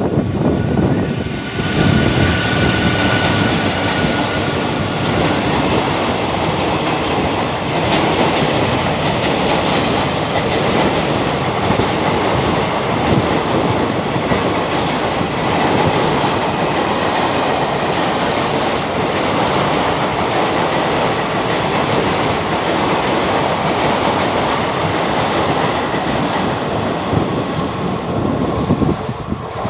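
Indian Railways passenger train running past at close range, the steady noise of its wheels on the rails lasting nearly half a minute and dropping away near the end.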